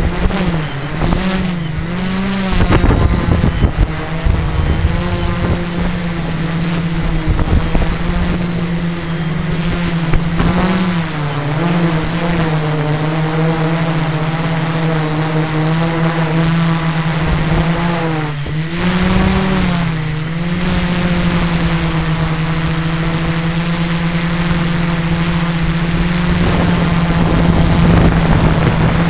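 Quadcopter's electric motors and propellers humming steadily, the pitch swinging down and up a few times as the craft adjusts its flight. Wind buffets the microphone a couple of seconds in.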